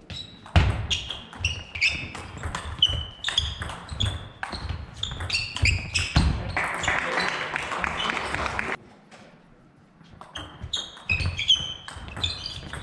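Table tennis ball rallied back and forth in a doubles game: sharp, ringing clicks, several a second, as the ball is struck by the rubber bats and bounces on the table, echoing in a large hall. The clicks stop for about a second and a half, then a new rally starts near the end.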